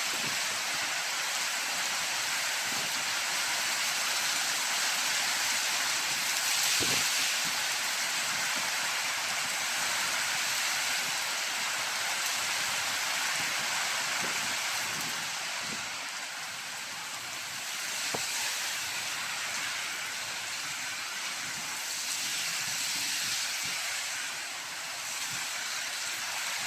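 Heavy rain with gusting wind, a steady hiss that swells and eases: strongest about seven seconds in, dropping back around the middle and rising again later, with a few sharper taps now and then.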